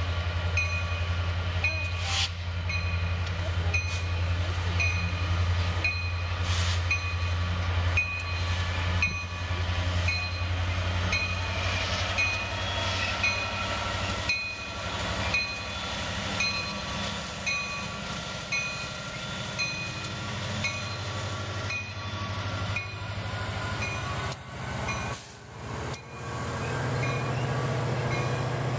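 Freight train passing, its locomotive engines running with a steady low hum that shifts higher near the end, with scattered knocks from the wheels. A steady ringing repeats about one and a half times a second.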